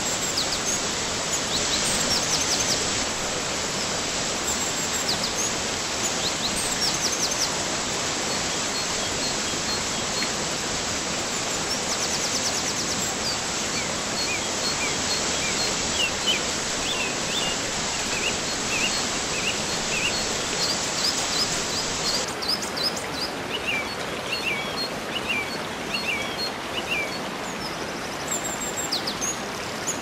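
Waterfall rushing steadily, with small birds chirping and trilling over it throughout. About two-thirds of the way through, the water's hiss softens and the birdsong stands out more clearly.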